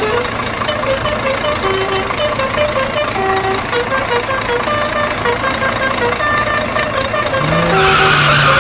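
Truck engine sound effect running steadily under a simple stepping background melody. Near the end a louder low tone with a hiss comes in.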